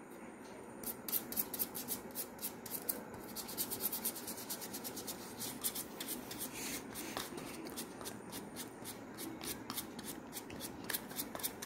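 A paintbrush brushing blue acrylic paint onto a paper cup, in quick, repeated scratchy strokes.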